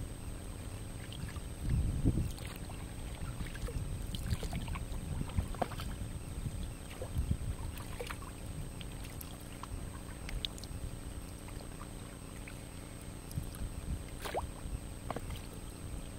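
Small irregular splashes and drips of water around an inflatable kayak moving on a river, over a low rumble of wind on the microphone that swells briefly about two seconds in.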